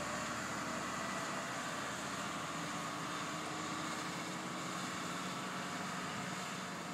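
Rescue truck's engine running steadily, a constant hum under an even hiss.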